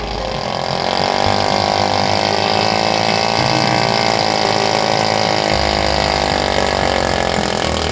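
Small petrol engine running steadily under load, its pitch wavering slightly up and down.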